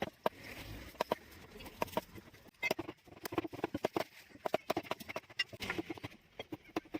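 A rapid, irregular series of sharp clicks and taps, several a second.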